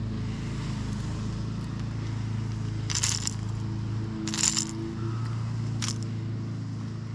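Three short metallic clinks, about a second and a half apart, from a hard plastic lure's treble hooks as they are worked free of a small black bass's mouth, over a steady low hum.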